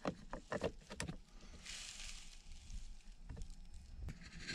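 Faint clicks and light taps of an aluminium paddle shifter being handled and pressed onto its plastic mounting bracket behind a steering wheel, with a short soft rustle about two seconds in.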